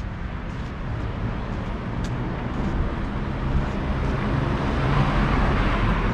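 Road traffic: a steady low engine rumble, with a vehicle's tyre hiss swelling louder in the second half as it comes close.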